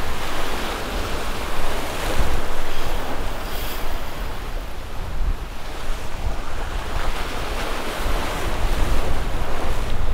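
Surf washing against the jetty, rising and falling in loudness every few seconds, with wind rumbling on the microphone.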